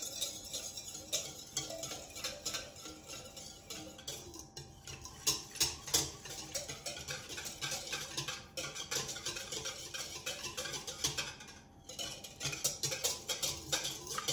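A utensil stirring dry yeast into warm water in a bowl, clinking against the side in quick, irregular taps to dissolve it.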